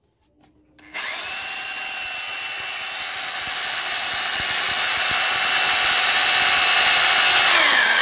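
Electric drill starting about a second in and running steadily as its bit bores into a brick, a steady motor whine over the grinding of the bit. The sound grows slowly louder, and the whine drops in pitch near the end as the motor slows.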